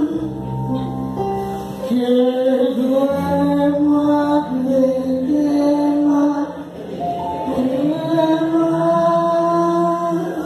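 Electronic keyboard playing held chords over a bass line, the chords changing every second or two.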